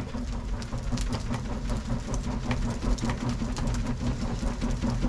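Charcoal in a grill being stirred and poked, with many small clicks and crackles, over a steady machine-like hum.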